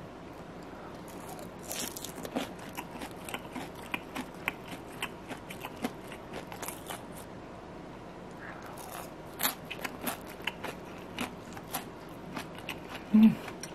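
Crisp pan-fried kimchi pancake being eaten: irregular crunches and crackles, with a short low thump near the end.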